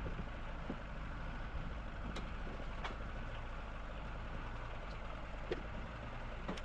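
A steady low mechanical hum, like a running engine or motor, with a few faint clicks.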